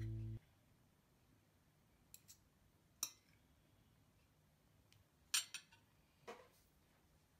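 A held music note cuts off just after the start, then a spoon and fork clink lightly against a ceramic plate a handful of times while scooping rice and meat. The loudest clinks come about two-thirds of the way in.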